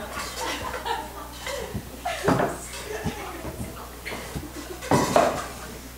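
Metal bowl and pots clattering and knocking, with two louder knocks about two and five seconds in.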